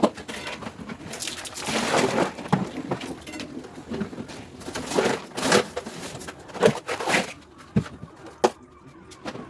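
Scrubbing and rubbing noises with a string of sharp knocks and clatters from handling parts while cleaning a refrigerator.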